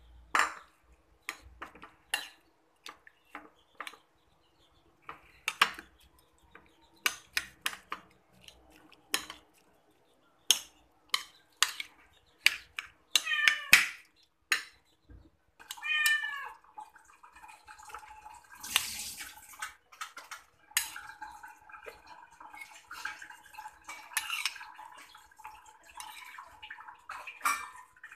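Metal spoon clinking and scraping on a ceramic plate and plastic bowls as fish is mashed into rice and scooped out. A cat meows briefly twice near the middle.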